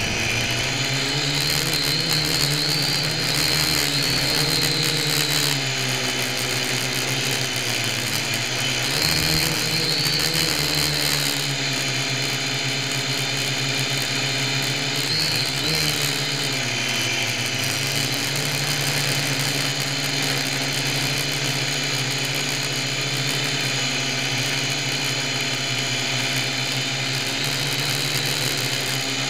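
Syma X1 quadcopter's four small electric motors and propellers running in flight, a steady buzzing whine picked up by a camera mounted on the craft itself. The pitch rises and falls several times as the throttle changes, most clearly around 3 to 4 seconds in, 9 to 11 seconds in and 15 to 16 seconds in.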